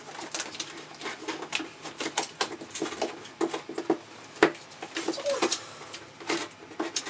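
Cardboard packaging being handled: irregular scraping, rustling and tapping as a cardboard insert is worked out of a monitor box.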